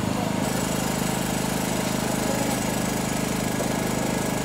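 An engine idling steadily with a low, even hum. Its tone thickens slightly about half a second in.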